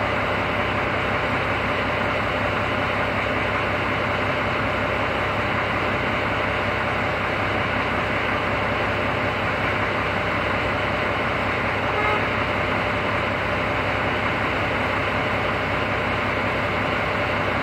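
Steady mechanical drone: a constant hum under an even hiss, unchanging throughout, with a brief faint higher sound about twelve seconds in.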